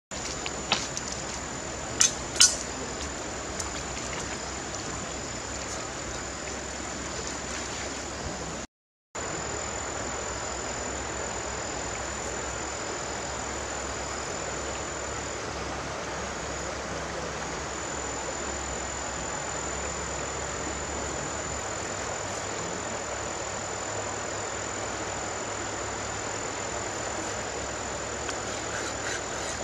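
Steady rush of a shallow river flowing over stones, with a thin, steady, high insect whine over it. A few sharp snaps come about two seconds in, and the sound breaks off for a moment near nine seconds.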